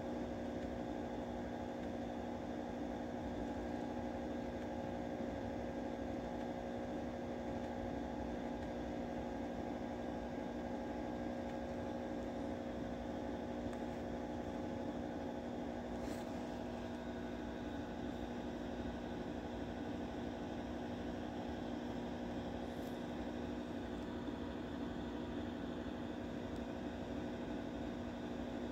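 A steady machine hum with several fixed tones over a faint hiss, unchanging throughout, with two faint clicks, one about 16 seconds in and one about 23 seconds in.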